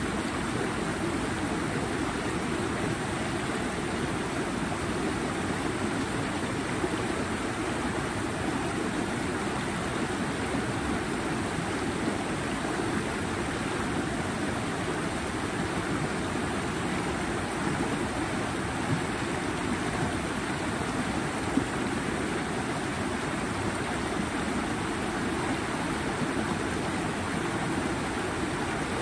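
Flowing water rushing steadily, like a stream.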